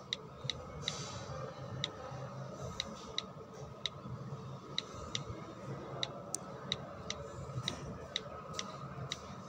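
Light key-tap clicks from typing on a smartphone's on-screen keyboard, irregular at about two a second, over faint steady background noise.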